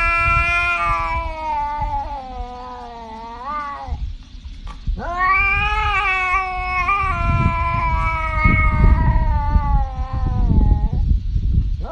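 A cat yowling in long, drawn-out calls: one of about four seconds that bends up in pitch at its end, then after a short break a longer one of about six seconds, with a third starting near the end.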